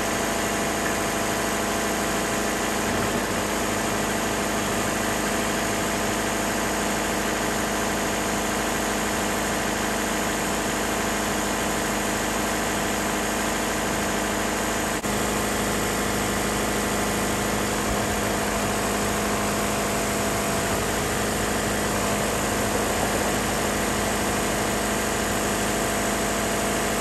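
A hydraulic portable sawmill's engine running steadily at idle, driving the mill's hydraulics while the head and legs are set.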